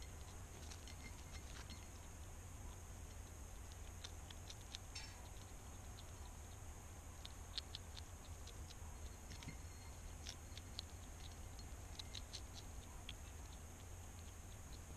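European hedgehog eating from a dish: small irregular crunching and smacking clicks, now single, now in quick runs, over a steady low hum.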